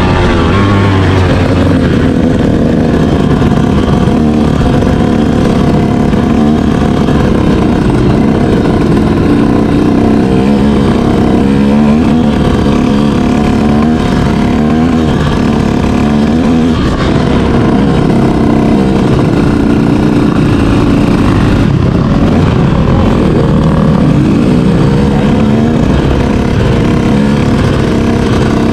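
Dirt bike engine heard from the bike itself, revving up and dropping back again and again as the throttle is opened and closed.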